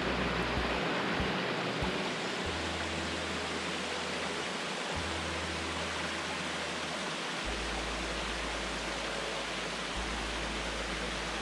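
Small mountain creek running over rocks: a steady rushing of water.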